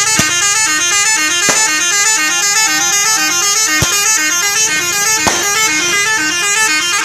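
Bus 'telolet' musical horn playing a fast tune of stepped notes that repeats over and over, with a few sharp clicks.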